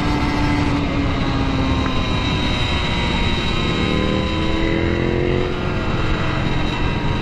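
Wind buffeting the helmet microphone at riding speed, with the Kawasaki Ninja 150 RR's single-cylinder two-stroke engine running underneath. The engine note rises faintly about four seconds in.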